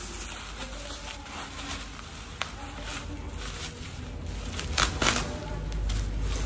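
Plastic bubble wrap rustling and crinkling as it is handled, with a few sharper crackles; the loudest come about five seconds in.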